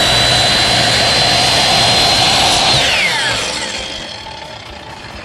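Electric compound miter saw running at full speed with a high steady whine while cutting a block of wood, then switched off a little under three seconds in, the whine falling in pitch as the blade spins down.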